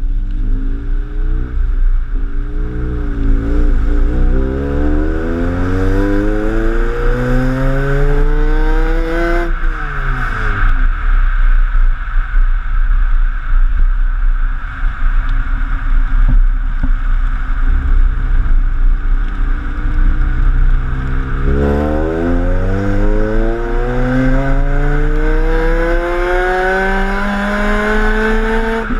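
Ford Puma's four-cylinder engine pulling hard under acceleration, its pitch climbing steadily for about seven seconds before dropping sharply as the throttle is lifted. It then runs lower and steadier for about ten seconds before a second long climb that falls away near the end.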